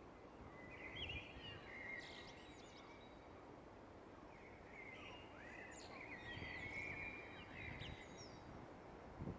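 Songbirds singing at dawn: faint, overlapping short chirps and warbling phrases over a steady low background hiss. A brief low thump comes near the end.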